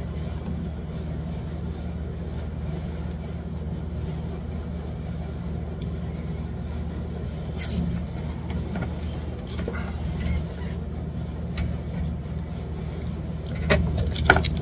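Steady low hum of machinery in the background, with light handling clicks, then a few sharp snips near the end as scissors cut a piece of tape.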